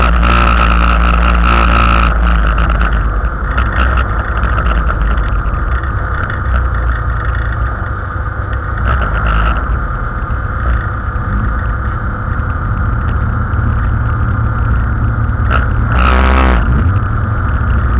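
Autocross race car's engine heard from inside the car: under throttle for the first two seconds, then running lower and steadier. It revs up briefly about sixteen seconds in.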